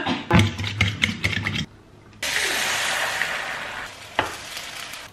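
Quick clicking of a fork against a bowl as eggs are beaten, then about two seconds in a sudden sizzle as the egg goes into a hot frying pan, the sizzle easing off toward the end.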